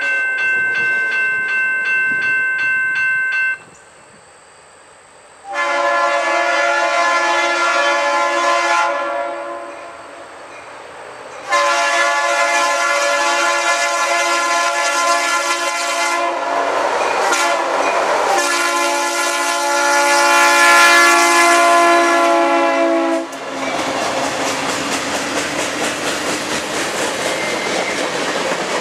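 Norfolk Southern diesel freight locomotive sounding its air horn chord in a series of long blasts as it closes in and passes, the last one held for about ten seconds. After the horn stops, the tank cars roll past with a steady rumble and clickety-clack of wheels over the rail joints.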